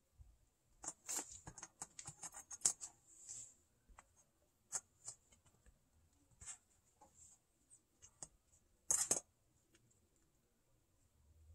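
Kittens moving about and pawing at paper and plastic coin flips and stands: scattered scratching, rustling and light clicks, thickest in the first few seconds, with the loudest scrape about nine seconds in. A faint steady high whine sits underneath.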